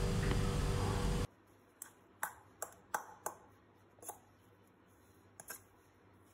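A steady background hum and hiss that cuts off abruptly just over a second in. Then a steel spoon clinks and scrapes against a steel bowl as boiled potatoes are mixed, with about eight light, irregularly spaced clicks.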